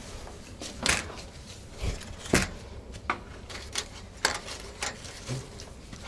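Footsteps on wooden boards and dry fallen leaves: a string of short knocks and crunches, roughly one every half second to second.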